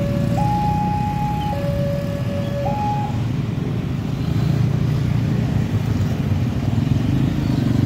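Railway level crossing's electronic warning alarm sounding a two-tone high-low signal, each note held about a second, which stops about three seconds in. Motorcycle engines run underneath and grow louder after the alarm stops.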